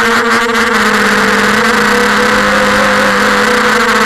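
Emax 250 Pro quadcopter's electric motors and propellers whining steadily, heard close from the onboard camera, over a dense rushing hiss. The pitch wavers slightly about halfway through as the throttle changes.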